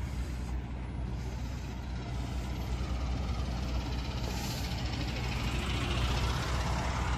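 An engine idling steadily nearby, a low continuous hum under open-air background noise.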